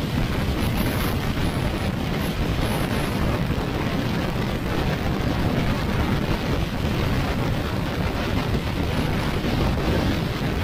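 Yamaha NMAX scooter with an RS8 CVT set riding at a steady cruise: an even low rush of wind on the microphone mixed with engine and road noise, with no change in speed.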